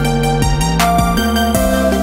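Electronic background music with a steady beat over held bass notes.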